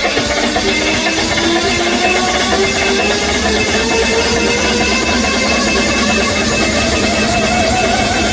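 Loud DJ music through a large Krish Standard Sound system, with heavy bass under a line that slowly climbs in pitch.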